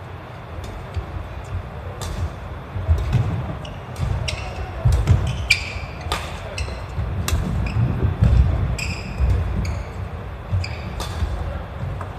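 Badminton singles rally on a wooden gym floor: sharp cracks of rackets striking the shuttlecock, short shoe squeaks on the court, and heavy thuds of footfalls as the players lunge and run.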